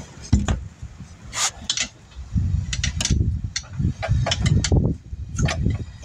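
Hand tools being worked on a car's wheels during a tyre change: irregular metal clicks and knocks over uneven low thumps.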